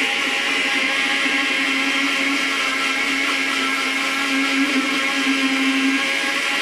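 Countertop blender running with a steady whir as oil is drizzled in through the lid, whipping the mixture into a mayonnaise-like emulsion.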